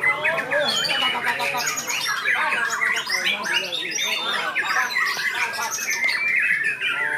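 Several caged white-rumped shamas singing at once in contest, a dense, continuous tangle of rapid whistles, trills and chattering phrases overlapping one another.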